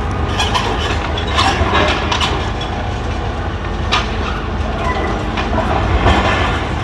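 Heavy demolition machinery at work: a diesel engine running steadily with irregular clattering and crashes of rubble and metal.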